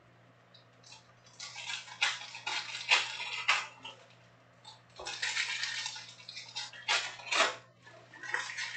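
Foil trading-card pack wrappers crinkling and rustling as the packs are picked up and handled. The crinkling comes in bursts, two longer runs and a short one near the end.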